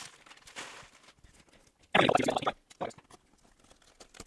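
Brown kraft packing paper rustling as it is pulled off a cardboard shipping box, with a loud half-second crinkle about two seconds in and a shorter one just after. Near the end come faint scratches and clicks as scissors cut the box's packing tape.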